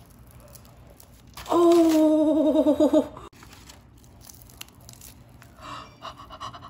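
A woman's voice letting out a loud, drawn-out cry, held with a trembling pitch for about a second and a half, in reaction to the heat of a freshly charcoal-roasted sweet potato in her hands.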